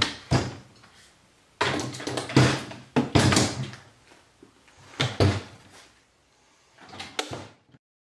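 Quick-release bar clamps being released and lifted off a wooden frame: clicks and knocks of the clamps' plastic and metal against the wood, in about five separate bursts. The sound cuts off near the end.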